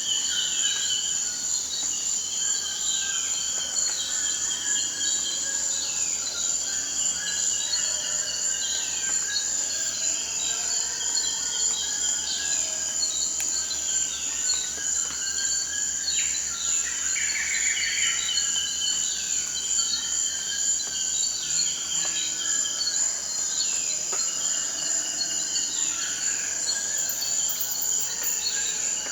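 Rainforest insects making a steady, high-pitched drone, with short falling calls from other animals repeating every second or so over it.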